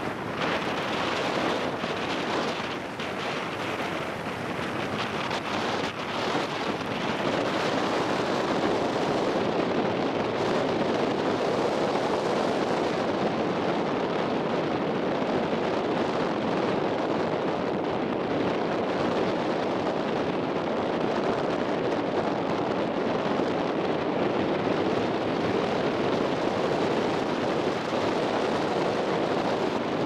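Steady rush of wind and water heard from a moving boat, with wind blowing on the microphone. It grows a little louder several seconds in.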